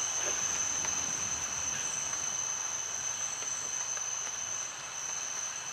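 Nocturnal rainforest insect chorus: a steady, high-pitched continuous trill with fainter higher and lower tones layered beneath it.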